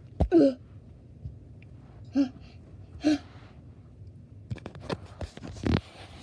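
Three short vocal sound effects from a child, the first loudest, about a quarter second in, then two more about two and three seconds in. In the last couple of seconds come rapid handling clicks and knocks, with one louder thump, as the phone is jostled.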